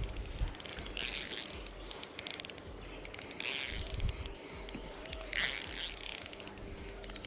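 Fishing reel clicking rapidly in bursts, its drag or gears ratcheting while a large hooked rainbow trout is played on the line.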